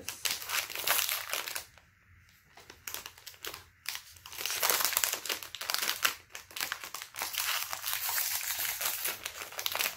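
Red metallic-foil snack wrapper crinkling as it is twisted and worked open by hand, in crackly bursts with a short lull about two seconds in.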